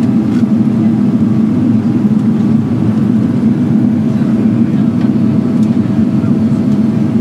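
Steady low cabin drone of a Boeing 777-300ER in flight, engine and airflow noise heard from a window seat, with a faint steady tone above it.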